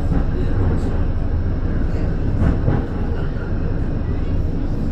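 Tram running along its rails with a steady low rumble and a few short knocks from the wheels over the track, heard from inside the car.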